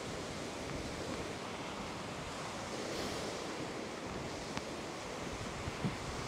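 Waves from Lake Ontario washing onto a sandy beach: a steady surf that swells briefly about halfway through, mixed with wind.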